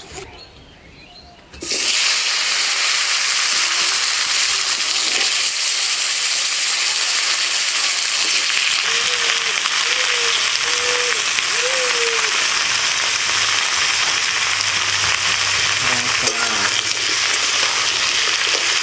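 Potato and papaya pieces dropped into hot oil in a wok, starting a sudden, steady sizzle about a second and a half in. The frying continues as the pieces are stirred with a metal spatula.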